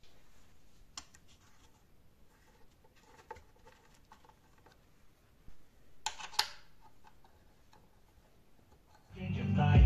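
Faint handling sounds: small clicks and scrapes of hands fitting an 8-inch woofer into a plywood test enclosure and turning its mounting screws with a hex key, the loudest a pair of sharp clicks about six seconds in. Rock music with guitar fades in near the end.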